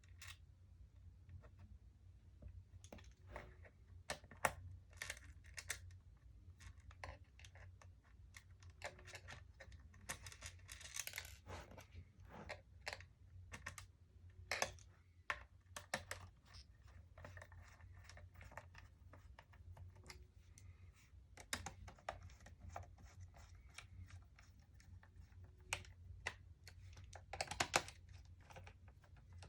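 Faint, irregular clicks, ticks and short scrapes of a small screwdriver driving screws into the plastic base of a Dell Latitude D630 laptop. The clicking comes in clusters, with a few sharper ones about four seconds in, around ten to eleven seconds and near the end.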